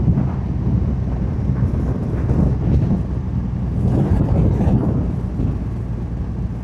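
Triumph Rocket 3 motorcycle's 2.5-litre inline-triple engine running at an easy cruise on the stock exhaust, with wind noise over it, swelling briefly a few times.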